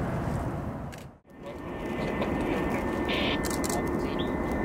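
Heavy jet cargo plane engines rumbling, with a steady high whine. The sound fades out almost completely about a second in and comes back straight away.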